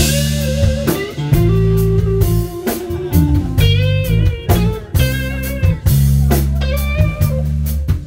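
Live band music: an electric guitar plays a bluesy lead with bent, wavering notes over a bass line and drums.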